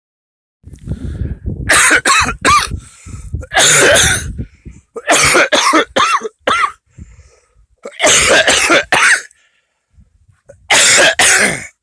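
A person coughing hard in about five fits, several of them two or three coughs in quick succession, with pauses in between.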